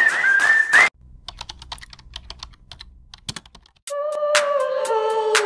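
Intro sound effects: a whistled tune over sharp beats that stops about a second in, then a quiet run of irregular clicks like typing on a keyboard. Music comes in about four seconds in.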